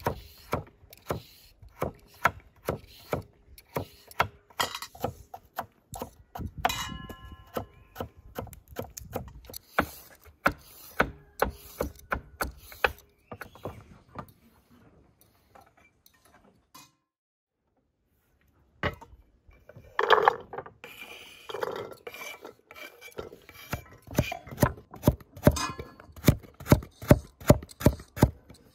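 Knife chopping carrots on a wooden cutting board: a run of sharp knocks, about two to three a second, that stops for a couple of seconds past the middle and then picks up again, faster near the end.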